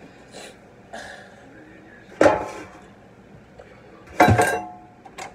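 Metal cookware clanking on a kitchen counter: two loud clanks about two seconds apart, the second ringing briefly, with a few lighter knocks around them.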